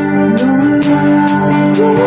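Live band playing: a drum kit keeping time with regular hits about twice a second, over held keyboard and guitar chords.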